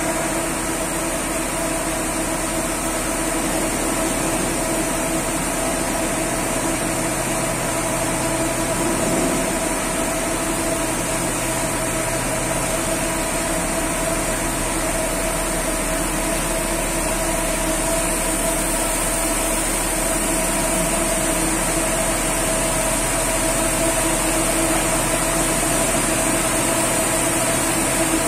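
Machinery of a tandem FIRATLINE Compact 5FRC automatic bus wash running: a steady hum with several held tones and a high hiss.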